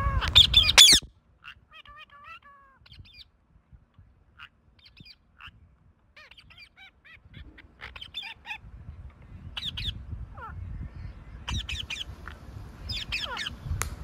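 Rose-ringed parakeet calling: a loud call in the first second, then soft chattering notes, then a run of short, sharp screeches in the second half.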